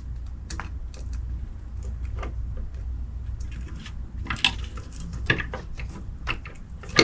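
Hard toy model-kit parts being handled and pushed together: scattered clicks and clattering knocks, the sharpest about four and a half, five and a half and seven seconds in, over a low steady hum.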